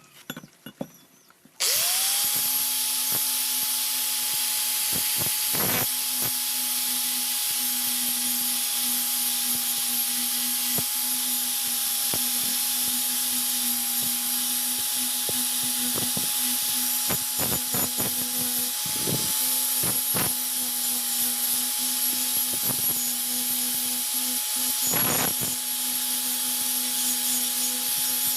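A few light clicks, then an electric power tool starts about two seconds in, spins up and runs at a steady pitch with a strong hiss, with scattered sharp ticks over it.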